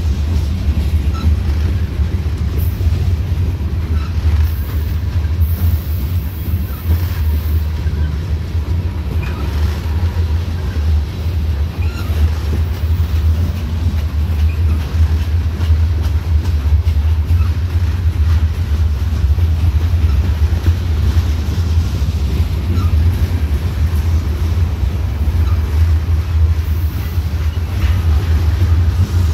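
Freight train of covered hopper cars rolling past close by: a steady low rumble of wheels on rail, with scattered clicks.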